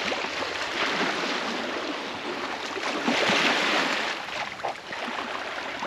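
Sea water rushing and splashing along the hull of a sailing ketch moving under sail, swelling about three seconds in.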